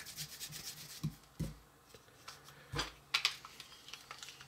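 Hard plastic parts of a Play-Doh handheld chip extruder clicking and clacking as they are handled and twisted together on the screw shaft. There are a couple of soft knocks about a second in, and a sharper clack with a few quick clicks near the end.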